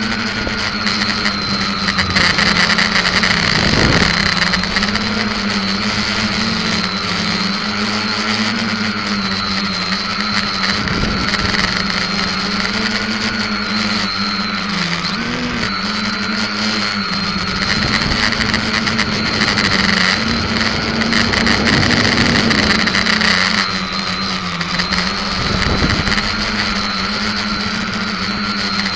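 SK450KK2 quadcopter's brushless motors and propellers whining, heard from the keychain camera mounted on the frame, the pitch wavering up and down with throttle. Low rumbles of wind buffeting the microphone come in several times.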